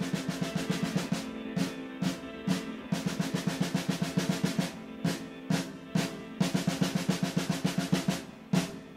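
Soundtrack music led by a snare drum playing rapid rolls and rhythmic strikes over a held low chord, with the drumming breaking off briefly several times.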